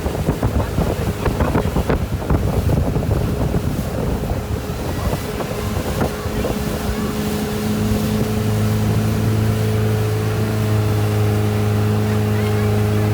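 Motorboat engine running steadily, heard through wind buffeting and water splashing on the microphone at first; the engine's drone comes through more clearly and louder from about halfway through.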